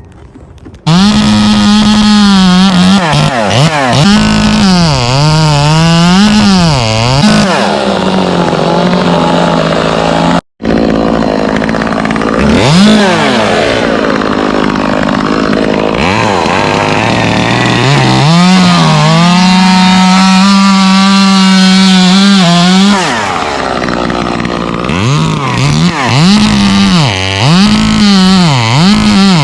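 Chainsaw engine revving up and down in quick blips, held at full throttle for a few seconds at a time, with a brief sudden break about ten seconds in.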